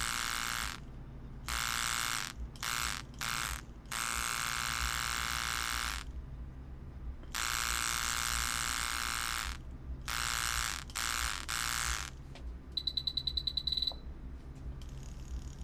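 Electric tattoo machine buzzing in stop-start bursts as the needle runs and pauses, some passes about two seconds long and others short taps. Near the end comes about a second of a rapid pulsing high-pitched tone.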